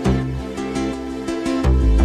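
Background music with a steady beat and pitched notes, and a heavy bass note near the end.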